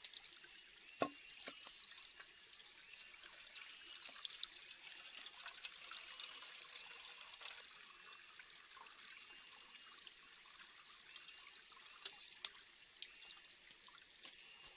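Shallow forest stream trickling and splashing around bare feet and a pot held in the water, with small knocks and splashes and one sharper knock about a second in.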